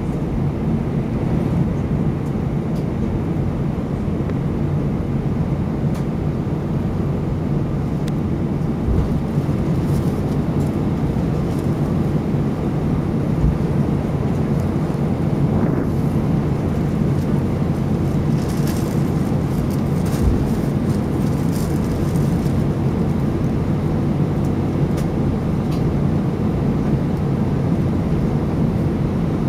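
Airbus A320 jet engines at takeoff thrust heard from inside the cabin over the wing during the takeoff roll: a steady, loud, low rumble of engine and runway noise. A few faint clicks come about two-thirds of the way in.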